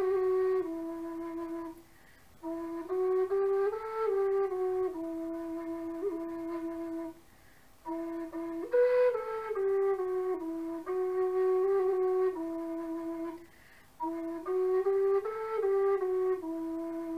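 Low whistle in D playing a slow lullaby melody solo, long held notes in phrases of a few seconds with short breaks between them.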